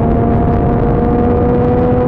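Motorcycle engine running at highway cruising speed, its pitch rising slowly as it gently accelerates, under heavy wind rush on the microphone.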